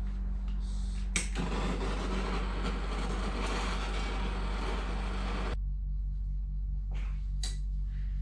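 A steady hiss starts with a sharp click about a second in and cuts off abruptly about four and a half seconds later, over a constant low hum; a couple of short clicks follow near the end.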